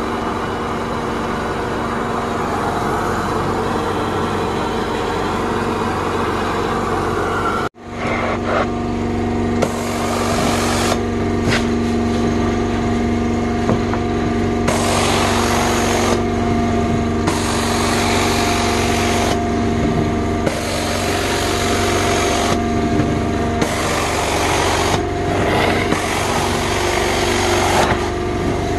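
Carpet-cleaning extraction machine running with a steady motor hum, while the rush of its cleaning wand comes and goes in strokes about a second or so long. The sound breaks off sharply for an instant about eight seconds in.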